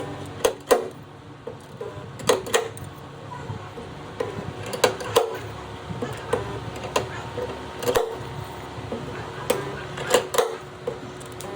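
Sharp metallic taps and knocks of dent-repair tools on a car body panel, irregular and often in quick pairs, each with a short ring, with faint background music underneath.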